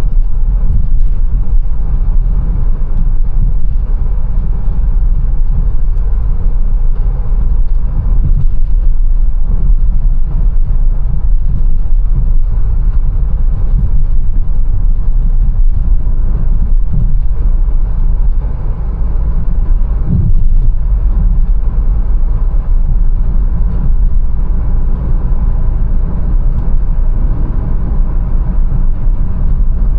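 Mercedes-Benz A180 driving in city traffic: a steady low rumble of engine and road noise. It dips briefly a little past the middle, then picks up again.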